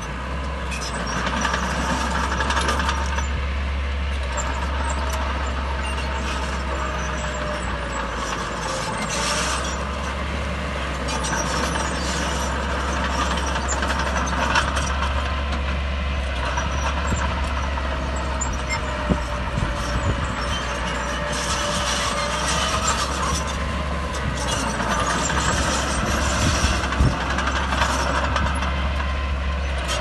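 Heavy diesel earthmoving machinery running steadily: a low engine drone under a whine that drifts slowly up and down in pitch, with a few sharp clanks in the second half.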